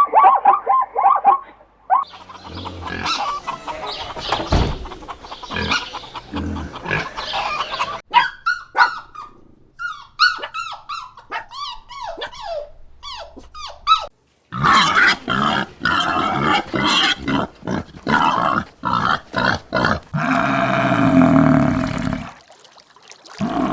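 Calls of several different animals in quick succession, each lasting a few seconds and cut off abruptly before the next: rapid repeated calls, grunting, short falling chirps and squeals.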